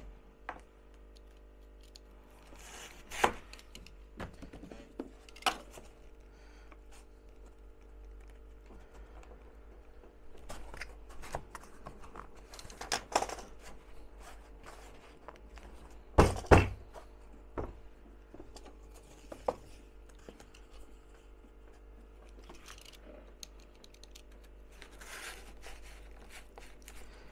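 Cardboard strips being handled and fitted into a wooden frame: scattered rustling and sharp knocks, the loudest a double knock about two-thirds of the way through, over a faint steady hum.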